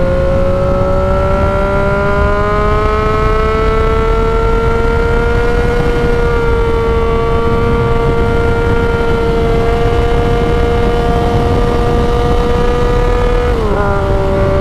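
2016 Yamaha XSR900's 847 cc inline-three engine through a straight-through Mavericks muffler, under way: its pitch rises gradually for the first several seconds, holds steady, then drops sharply near the end.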